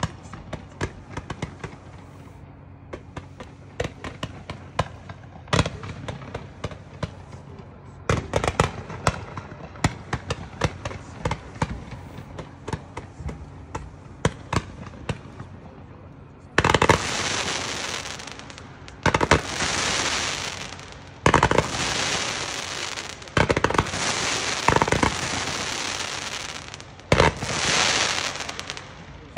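A 500-gram consumer fireworks cake firing. For the first half there are rapid separate pops and small reports. From about 17 seconds in comes a run of loud, dense bursts, each about two seconds long.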